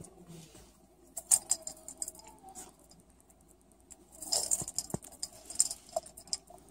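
Hollow plastic treat ball pushed about on a tile floor by a cat, the dry cat treats inside rattling and clicking against the shell in scattered bursts, with the busiest rattle about four seconds in.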